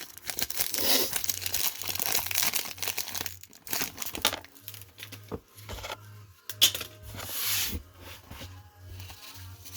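1991 Topps wax-paper card pack being torn open and crinkled, with cardboard cards rustling as they are handled: a string of short, irregular papery rips and crackles.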